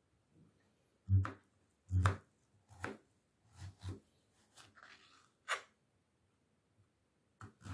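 Kitchen knife slicing a peeled zucchini lengthwise into thin strips on a plastic cutting board: a series of separate knocks as the blade cuts through and meets the board, the two loudest about one and two seconds in.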